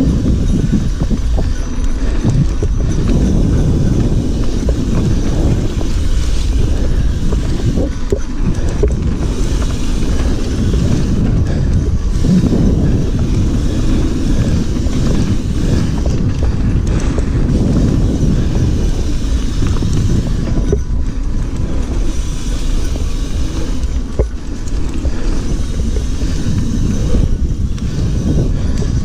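Mountain bike riding fast over a dirt trail, heard from a handlebar-mounted camera: a loud, steady rumble of wind buffeting the microphone, tyres rolling and the bike rattling over bumps.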